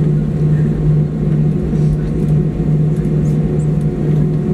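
Cabin noise of an Airbus A320 taxiing: a steady engine drone with a constant low hum.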